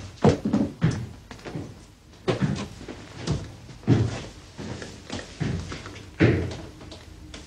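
Scuffle: an irregular series of heavy thumps and bangs as bodies knock about. The loudest come near the start and about six seconds in.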